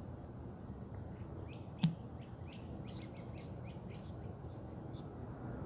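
Birds chirping in short, quick calls over a steady low background rumble, with a single sharp click just before two seconds in.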